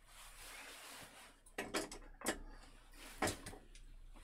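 A few short, sharp knocks and clatters of things being handled and set down on a workbench, over a faint steady hiss.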